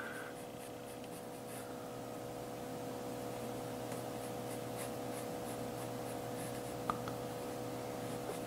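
Mechanical pencil sketching on paper: faint, scratchy strokes come and go, with a small click about seven seconds in. A steady low hum runs underneath.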